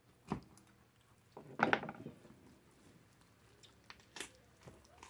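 Knife cutting through the neck joint of a hog carcass as it is bent over to dislocate: a knock just after the start, a louder burst about a second and a half in, and a few sharp clicks near the end.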